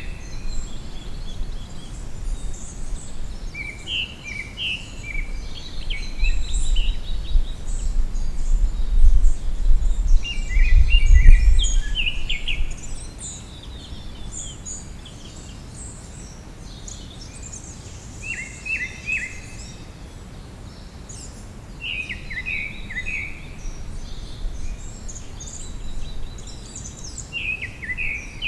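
Songbirds singing in a spring forest: a short, rapid chirping phrase repeated every few seconds, with scattered high chirps between. Under it runs a low rumble, strongest from about six to twelve seconds in.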